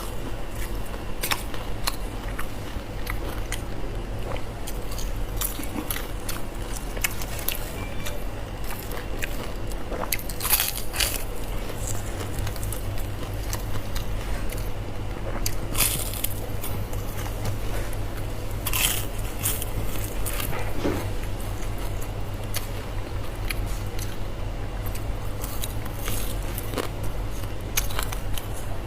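Close-miked biting and chewing of crispy fried pork intestines: irregular crisp crunches and wet chewing over a steady low hum.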